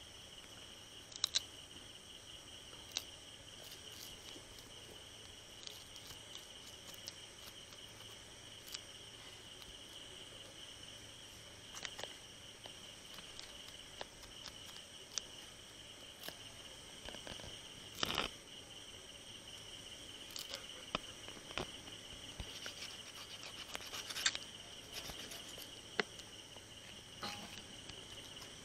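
Steady high chirring of insects, with a few scattered sharp clicks and knocks.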